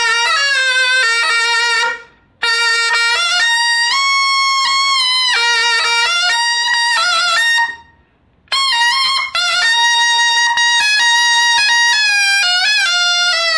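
Taepyeongso, the Korean double-reed shawm with a metal bell, played solo: a loud melody of held notes with slides between them. It breaks off twice for breath, about two seconds in and again about eight seconds in.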